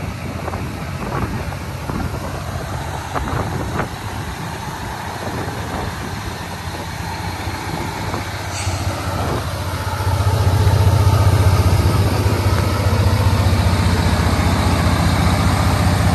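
Diesel engine of a 2019 International LT625 semi tractor idling with a steady low hum, which grows louder about ten seconds in.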